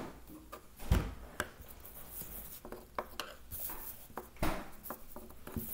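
Pencil scratching and tapping on a sheet of paper lying on a wooden tabletop, with a handful of short, sharp knocks, the loudest about a second in.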